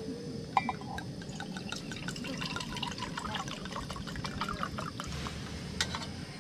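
Red wine glugging out of a glass bottle into a metal camping mug, in a run of short bubbly gurgles. Near the end, two metal mugs clink together once with a short ring.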